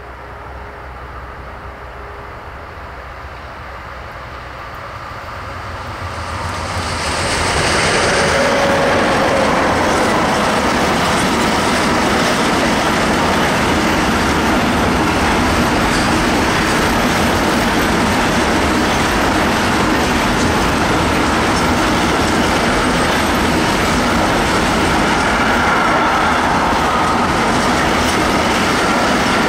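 Intermodal freight train hauled by two Crossrail Re 436 electric locomotives, approaching and passing. It builds over the first several seconds to a loud, steady rolling noise of wagon wheels on the rails as the long line of swap-body wagons goes by.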